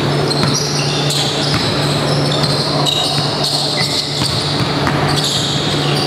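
Basketball bouncing on a hardwood court as a player dribbles, with sneakers squeaking on the floor in short high-pitched chirps, all over a steady low hum in the gym.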